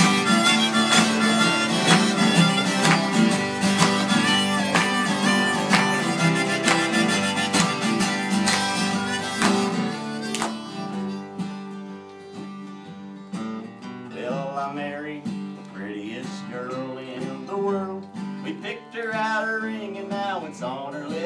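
Harmonica solo over two acoustic guitars strumming a country tune. About halfway through the playing drops to a softer, sparser passage.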